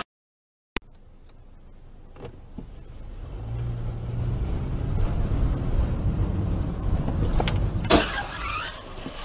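Driving noise heard from inside a car: a steady low hum of engine and tyres that grows louder over several seconds. About eight seconds in comes a sudden loud bang with a brief rattle after it.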